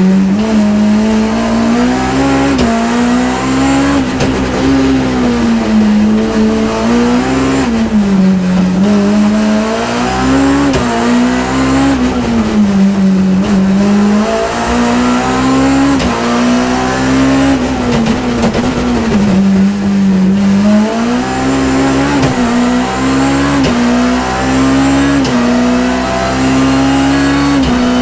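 BMW E30 M3's four-cylinder S14 engine at high revs, heard from inside the rally car's cabin, its pitch rising and falling again and again as the throttle is lifted and reapplied through the turns. Near the end it pulls hard in steps through the upshifts under full throttle.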